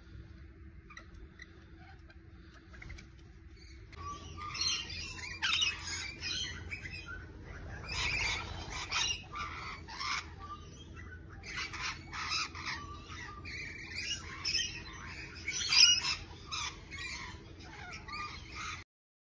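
A flock of rainbow lorikeets calling in shrill, overlapping screeches, starting about four seconds in after a quieter stretch and cutting off abruptly just before the end.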